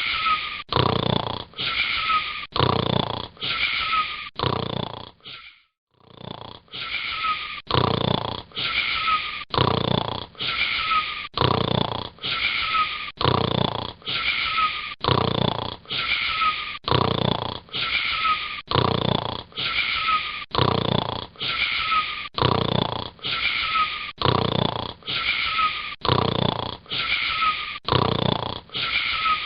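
A boy snoring: rasping, wheezy breaths repeated in a fast, very even rhythm, with a short break about five seconds in before the snoring resumes.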